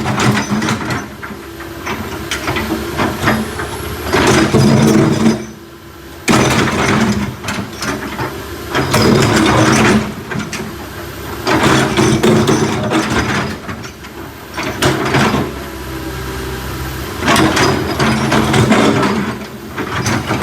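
Backhoe's diesel engine working: it revs up under load in repeated spells of a few seconds and drops back toward idle between them, with clanking and rattling from the machine.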